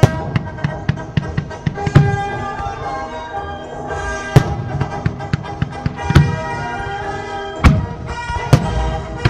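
Fireworks display: aerial shells bursting with sharp, loud bangs, several in quick succession in the first two seconds and then single heavy reports every second or two. Music plays throughout.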